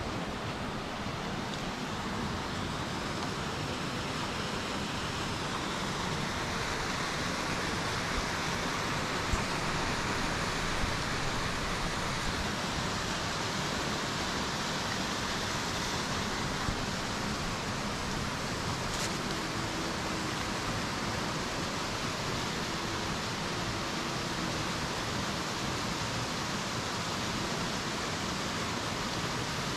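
Steady rush of a nearby waterfall, with a few faint taps partway through.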